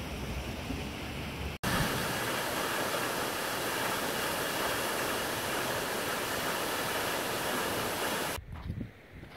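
Waterfall rushing steadily, a loud even hiss of falling water. It is preceded briefly by wind rumbling on the microphone and cuts off abruptly near the end.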